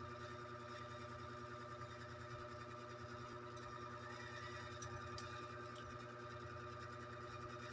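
A steady faint background hum made of several fixed tones, with a few light sharp clicks about halfway through.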